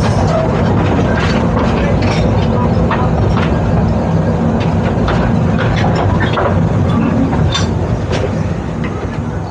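Rumble and clatter of a heritage railway carriage on the move, with many irregular clanks and clicks from the running gear, growing quieter near the end.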